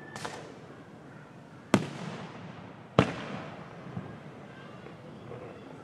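Aerial fireworks shells bursting: two loud bangs about a second and a quarter apart, each trailing off slowly, with fainter pops before and after.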